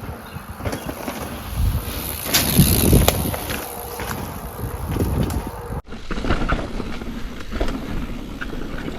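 Mountain bike riding downhill on a dirt and rock trail: tyres rolling and crunching, the bike rattling and knocking over bumps, with wind on the microphone. The sound breaks off and changes abruptly about six seconds in.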